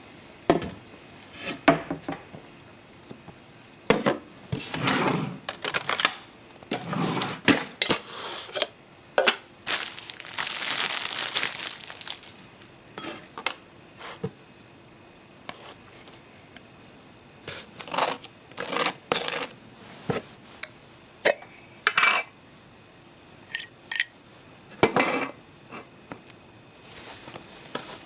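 Studio foley effects: a run of irregular clinks, clatters and rustles, like dishes and cutlery being handled, with a longer rustling noise about ten seconds in.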